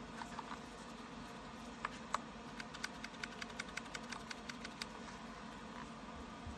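Keys being pressed on a DREVO Seer PRO 61-key mechanical keyboard with Gateron Brown switches: a few scattered clicks, two louder ones about two seconds in, then a quick even run of about six keystrokes a second for around two seconds.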